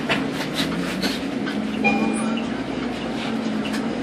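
City bus engine and drive heard from inside the bus, a drone that rises in pitch in the first two seconds as the bus pulls away and then holds steady, with light rattles and clicks from the cabin.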